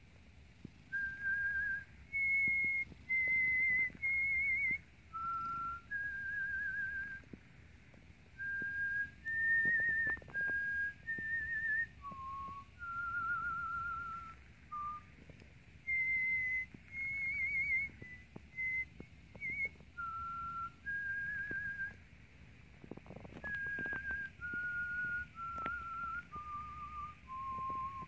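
A person whistling a slow tune of separate held notes, each with a wavering vibrato, to a cat, with the cat's purr as a low steady rumble underneath.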